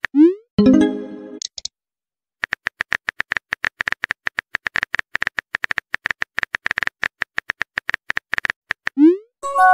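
Rapid keyboard typing clicks from a texting-story app, about ten a second. Just after the start a short rising swoosh and a brief chime mark a message being sent, then after about a second's pause the typing runs on and ends near the end in another swoosh and chime.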